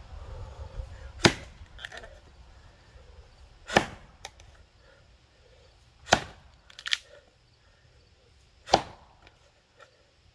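Axe chopping into a box elder log: four sharp strikes about two and a half seconds apart, some followed by a fainter knock.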